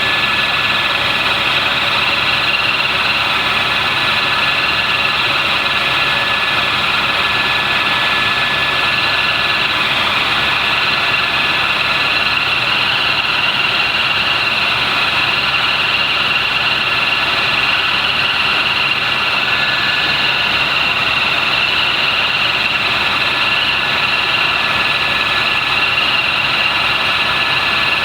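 Helicopter in flight: a steady run of engine and rotor noise with a constant high whine over it, unchanging throughout.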